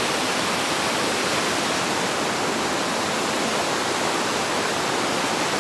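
Water rushing steadily down a small waterfall cascading over rocks, an even rush that doesn't change.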